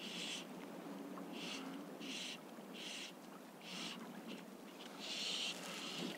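Fly line being stripped in by hand through the rod guides: a run of short pulls, each a brief hissing zip, about one a second, with a longer pull near the end.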